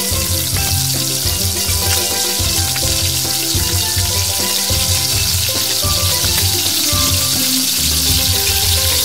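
Hot oil sizzling steadily as batter-coated flowers and leaves deep-fry in a small steel pot, with background music underneath.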